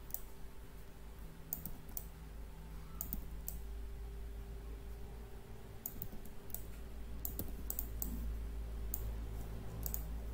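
Scattered single clicks of a computer mouse and keyboard, sometimes two or three close together, over a steady low electrical hum.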